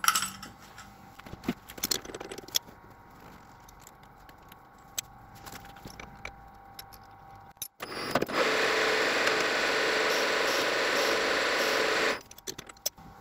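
Metal lathe running steadily for about four seconds, starting and stopping abruptly, while a chamfer is cut in the threaded steel boss. Before that come a few small clicks and light metallic rattles of parts and tools being handled.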